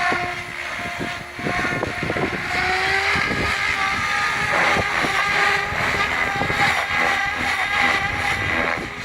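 Electric SAB Goblin 700 Competition RC helicopter with a three-blade main rotor in flight. The motor and gear whine drifts up and down in pitch over the rotor's whir. Wind buffets the microphone in uneven thumps.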